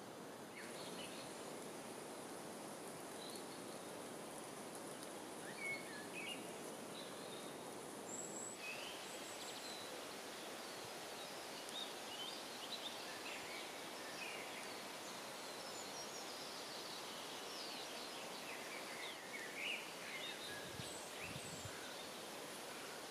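Outdoor ambience: a steady low hiss with many short, scattered bird chirps and calls.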